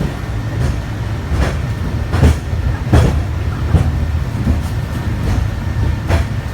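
Peak Tram funicular car running on its track: a steady low rumble with a regular knock about every 0.8 seconds.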